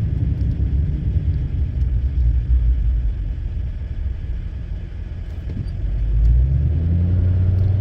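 Diesel pickup truck's engine and road rumble heard from inside the cab as it slows for a stop. About six seconds in, a steady low engine hum comes up louder.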